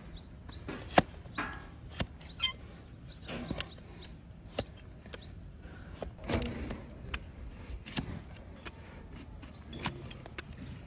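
A large hoof knife cutting into a donkey's hoof horn, giving sharp, irregular clicks and cracks every second or two as the blade bites and strikes the wooden block beneath.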